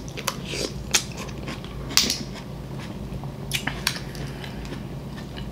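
Mussel shells clicking and clinking as they are handled and pried apart by hand over a glass bowl of broth: about five sharp, irregular clicks.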